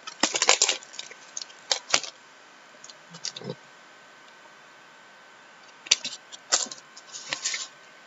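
Trading cards and foil card-pack wrappers being handled: a cluster of quick clicks, snaps and crinkles, a quiet stretch of a few seconds, then another cluster of clicks.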